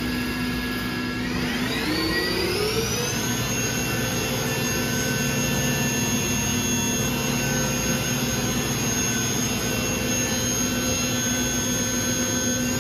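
Sharp SV-4328SX CNC vertical machining center running through a demonstration cycle, its table traversing. A motor whine rises in pitch over about two seconds, starting a second and a half in, then holds steady.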